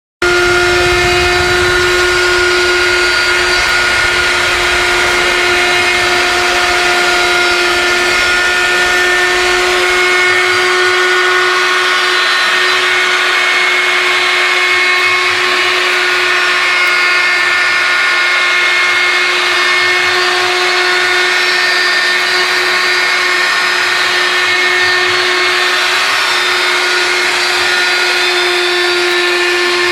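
CNC router (pantograph) spindle motor running steadily, a constant whine over a broad hiss. A low rumble underneath drops away about a third of the way through.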